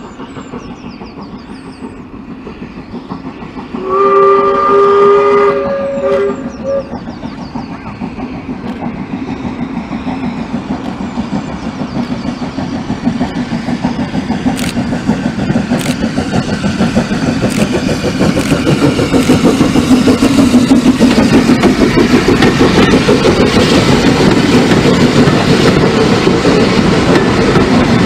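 Bagnall 0-6-0 saddle-tank steam locomotive giving a two-note whistle for about two seconds, about four seconds in. Its rhythmic exhaust chuffing then grows steadily louder as it approaches and passes with its coaches clattering over the rails.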